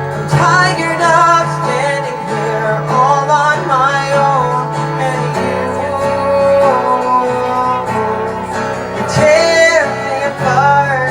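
A song performed live: a singer with acoustic guitar accompaniment, the voice carrying a wavering melody over held guitar chords.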